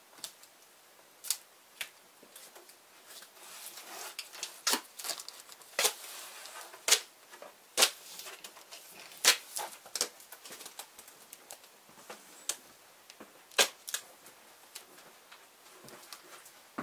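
Duct tape being pulled off the roll and torn: a rasping rip a few seconds in and irregular sharp snaps and crackles as the tape is handled and pressed down.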